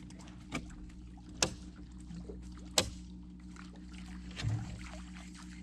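A few sharp knocks and clatter inside a small fishing boat, the loudest two about a second and a half apart near the middle, over a steady low motor hum.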